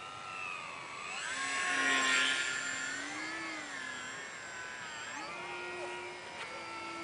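Electric motor and propeller of a scratch-built radio-controlled model airplane whining in flight. The pitch wavers up and down as it flies past, loudest about two seconds in, then settles lower and steadier after about five seconds.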